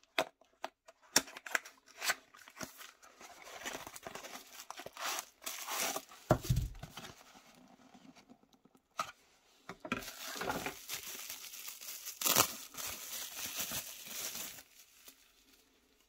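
Unboxing a knife: a few sharp clicks as the cardboard box flap opens, rustling as the inner box slides out, then a longer stretch of packaging crinkling and tearing as the knife is unwrapped from its sleeve.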